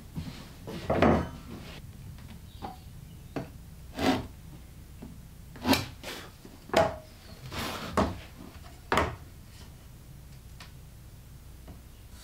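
Hand tools and board panels handled on a workbench: about six knocks and clacks as a metal rule, a large square and a saw guide rail are picked up and set down on white furniture board, with lighter taps and sliding scrapes between them.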